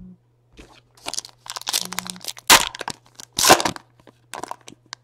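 Foil wrapper of a Panini Elite Extra Edition baseball card pack being torn open and crinkled by hand, in a run of short crackling rips, loudest about two and a half and three and a half seconds in.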